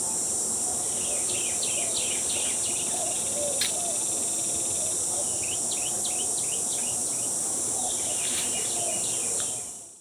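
Steady, high-pitched chorus of insects, cricket-like, with short bursts of bird chirps coming and going. The chorus fades out near the end.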